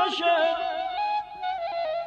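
Persian classical ensemble music in dastgah Nava. A sung phrase with vibrato ends right at the start, then the instruments carry on with held notes that step in pitch and a few plucked or struck notes.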